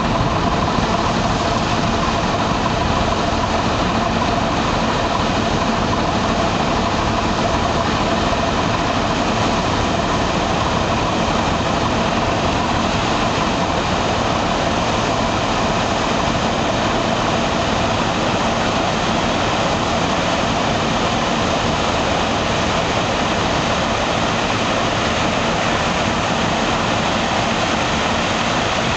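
Combine harvester at work in corn, its engine and threshing machinery running steadily as one dense, constant noise with a faint steady whine in it.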